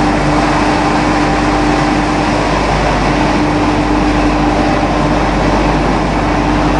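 Stalk and straw pellet production line running: loud, steady machinery noise with a constant hum from the pellet mill and its conveying equipment.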